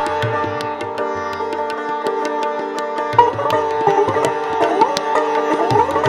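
Hindustani classical sitar and tabla playing together. The sitar plays plucked melody with sliding, bent notes over its ringing drone strings, strongest from about three seconds in. The tabla keeps time with sharp strokes and deep bayan strokes that bend in pitch.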